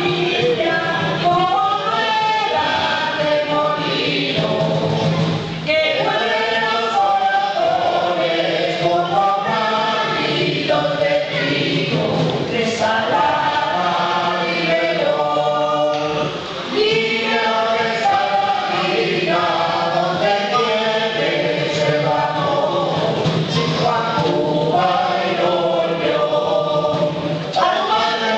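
A group of voices singing a song together in chorus, with no break.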